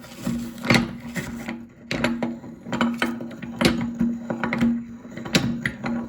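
Meat grinder running with a steady hum while cookies are crunched and crack in it, with sharp cracking snaps about every half second to second.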